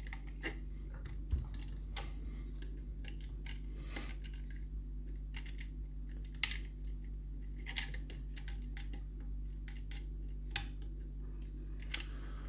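Irregular light metallic clicks and ticks of lock picks working the levers of an ERA Fortress lever mortice lock, picked from the bolt side, over a steady low hum.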